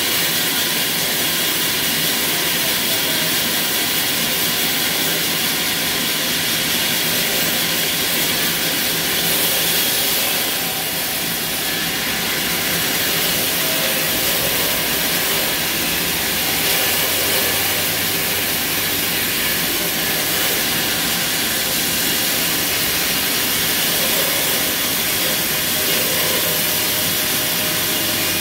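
Horizontal band sawmill cutting lengthwise through a squared timber log: the running blade and its motor make a steady, high-pitched hissing whine that holds level throughout.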